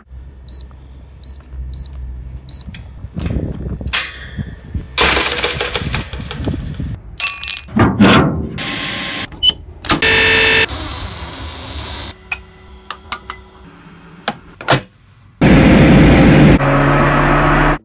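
A string of short sound-effect recordings cut abruptly one after another: four short high beeps at the start, then noisy and mechanical sounds that switch on and off suddenly, the loudest block coming near the end.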